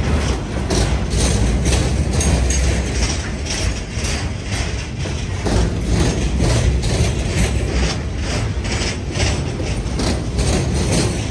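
Freight cars of a lumber train rolling past, with a low rumble and a rapid, irregular clicking and rattling of steel wheels over the rail joints.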